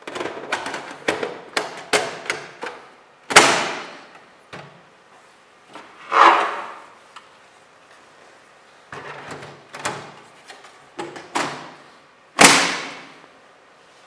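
Plastic and sheet-metal clatter and knocks from a Dell desktop computer case as an optical drive is dropped into its drive bay and the case cover is closed. There are three loud single clunks, the last near the end as the cover snaps shut.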